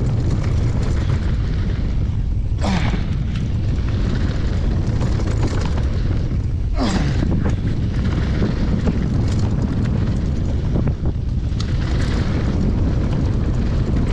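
Wind buffeting the microphone over mountain bike tyres rolling on a dirt trail during a downhill run, a steady loud rumble. Brief clattering hits from the bike stand out about 3 seconds and 7 seconds in.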